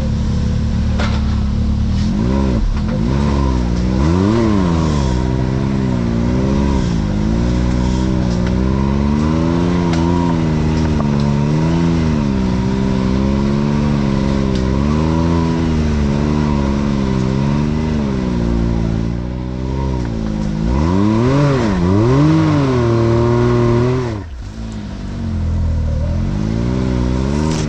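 Side-by-side UTV engine revving up and down over and over, the throttle worked every second or two as it crawls over rocks. Near the end the revs climb higher, then drop off suddenly.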